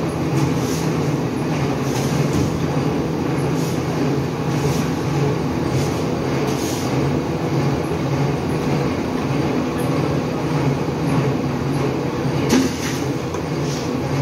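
PVC pipe extrusion machinery running steadily: a constant low mechanical hum with a rushing noise over it. A few faint clicks and one sharper knock near the end.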